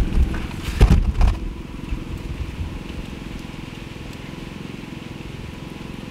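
A few loud knocks and clunks in the first second or so, then a steady low engine-like hum.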